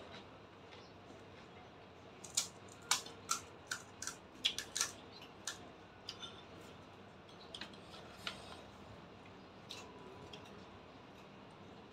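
Crisp, hollow pani puri shells cracking and crunching: a quick run of sharp brittle clicks from about two to five and a half seconds in, then a few scattered ones.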